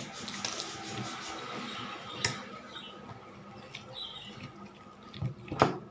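Small clicks and light handling noises from a plastic ice-cube tray being handled, with a sharper click about two seconds in and a louder knock near the end.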